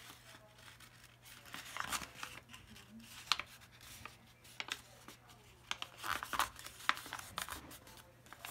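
A small square of plain white paper being folded in half and creased by hand: irregular crinkling and sharp paper crackles, over a faint steady low hum.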